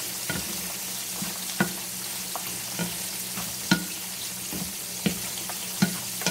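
Shrimp sizzling in a skillet in butter and a little heavy cream, with a steady hiss, while a wooden spatula scrapes and knocks against the pan about once a second; one knock past the middle stands out as the loudest.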